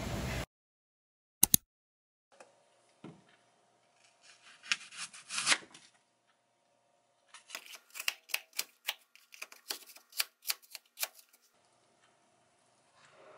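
Knife slicing a raw apple held in the hand, without a cutting board: soft scrapes and cuts, then a quick run of crisp cuts about three a second. Two sharp clicks come about a second and a half in.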